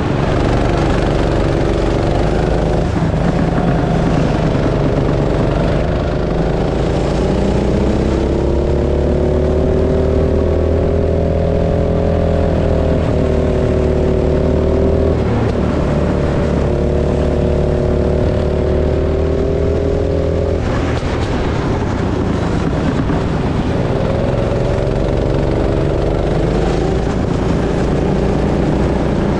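Go-kart engine running at speed, its pitch climbing as it accelerates and sagging when the throttle is lifted, sharply about halfway through and again around two-thirds of the way in. A steady low drone runs underneath.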